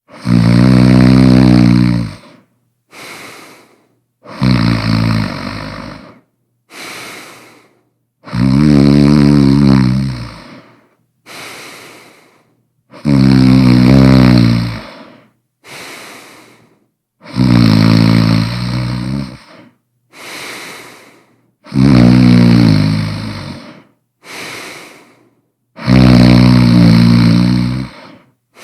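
A person snoring loudly in a slow, even rhythm: seven long snores about four seconds apart, each followed by a shorter, quieter breath.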